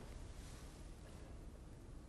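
Quiet room tone: a faint, steady hiss with no distinct sound.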